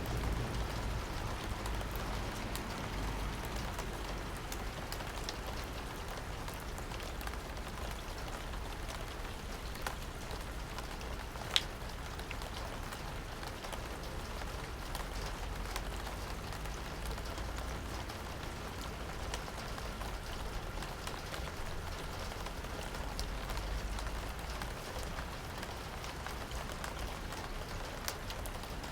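Steady rain with individual drops ticking on a hard surface close to the microphone, and one sharper, louder drop partway through.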